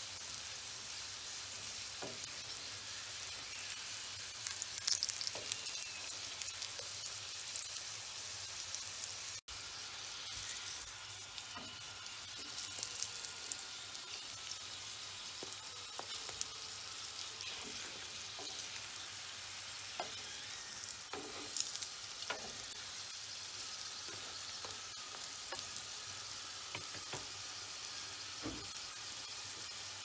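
Nettle-stuffed flatbreads frying on a non-stick griddle: a steady sizzle and crackle, with brief taps and scrapes of a wooden spatula now and then.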